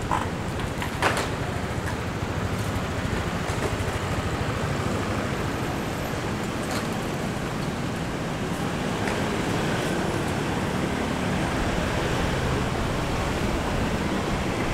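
Steady city road-traffic noise with a low rumble, with two short sharp knocks about a second apart near the start.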